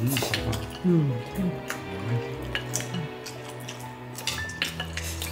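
Background music with sustained notes, with a scatter of short clinks of spoons and chopsticks against bowls from people eating at the table.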